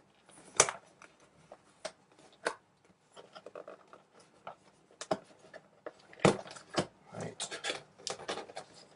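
Cardboard retail box packaging being opened and handled: irregular rubbing and scraping with sharp knocks, the loudest about half a second in and again about six seconds in.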